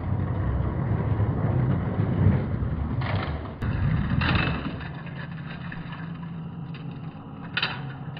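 Toy monster trucks rolling down an orange plastic track: a dense low rumble that gives way about four seconds in to a steadier low hum, with a few sharp clacks as the trucks reach the finish gate and tumble onto the carpet.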